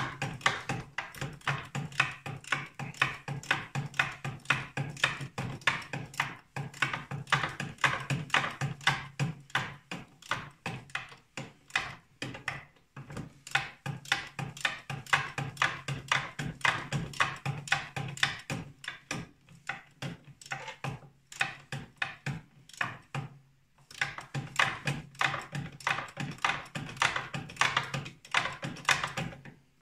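Rapid, steady metallic clicking, about four to five clicks a second with two brief pauses, from a hand tool being worked at a snowmobile chain case sprocket. A low steady hum runs underneath.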